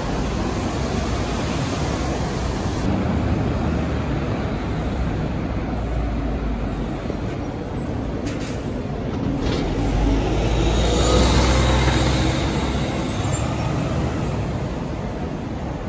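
City bus driving close past and pulling away, its engine rumble growing louder about ten seconds in and then easing off, over steady traffic noise under a concrete deck.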